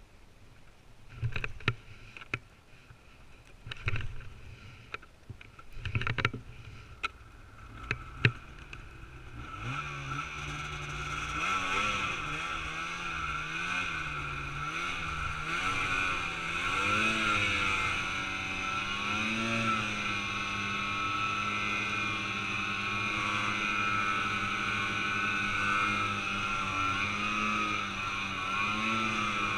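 Snowmobile heard from on the machine. A few knocks and thumps sound over a low engine for the first several seconds. About ten seconds in the engine comes up under throttle and runs steadily on, its pitch rising and falling as the rider eases on and off the throttle.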